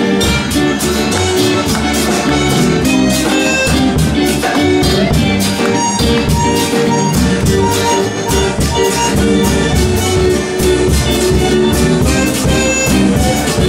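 Live band playing an instrumental passage of a traditional Chocó porro: accordion, electric guitar and drum kit over a steady dance beat.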